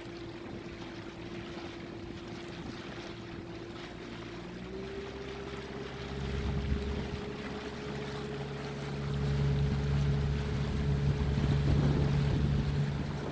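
Motorboat engine running, its pitch stepping up about four and a half seconds in and the sound growing louder over the second half, as when the throttle is opened to follow a dolphin pod.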